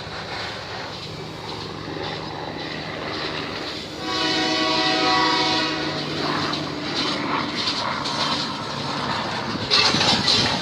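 Diesel freight locomotive passing, its engine humming steadily. A few seconds in the horn sounds once for about two seconds. Near the end the wheels start clattering over the rail joints.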